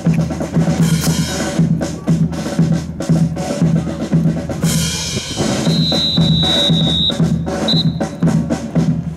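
A marching band's drums play a steady cadence with a low beat about twice a second and sharp snare hits. About six seconds in, a high steady tone sounds for over a second, then briefly once more.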